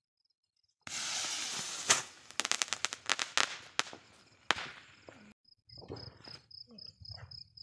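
Diwali firework rocket going off, starting about a second in: a hiss as it flies, a sharp bang, then a rapid string of crackling pops and one more loud pop, fading out. Crickets chirp steadily near the end.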